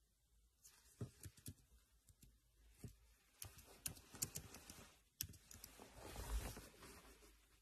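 Faint, irregular tapping and clicking of fingers on a device, like typing or tapping a screen, with a brief rustle of handling about six seconds in.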